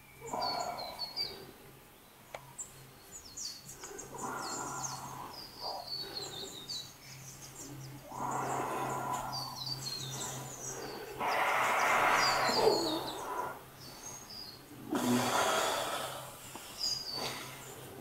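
Several long, breathy rushes of sound a second or two apart, the heavy exhales of a man lying face down while a woman stands barefoot on his back. Birds chirp throughout over a steady low hum.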